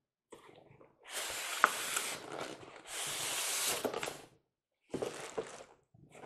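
Cardboard packaging sliding and rubbing as a box is opened: two long scraping rustles of about a second each, then a few shorter rustles.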